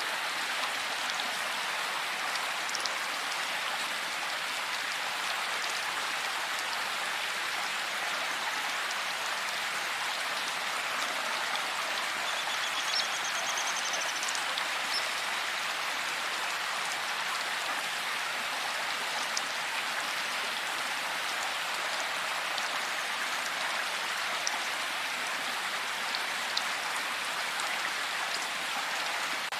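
Steady heavy rain falling, an even hiss with scattered individual drops tapping. About twelve seconds in, a faint high ticking trill sounds briefly over the rain.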